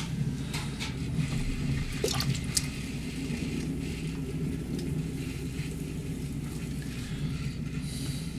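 Wet clay squelching and swishing under the potter's hands on a spinning potter's wheel as the lump is opened into a pot, over the steady hum of the wheel, with scattered small wet ticks.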